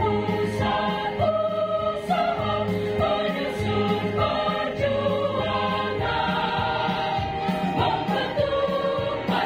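Mixed choir of women and men singing in parts, holding each note for about a second.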